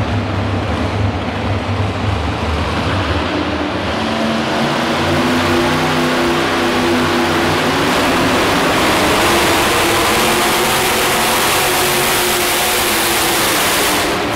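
Multi-engine modified pulling tractor's V8 engines rumbling at low throttle, then opening up about four seconds in and running at full throttle, rising in pitch, as the tractor drags the weight-transfer sled down the track.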